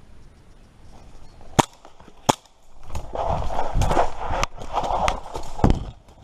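Two sharp airsoft gun shots about two-thirds of a second apart, then about three seconds of loud rustling and low thumping with several more sharp cracks in it, stopping abruptly near the end.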